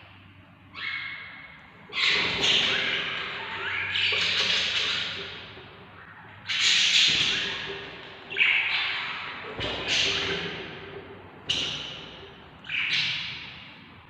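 Budgie chicks in the nest box giving raspy begging calls, about eight in all. Each call starts sharply and fades over roughly a second.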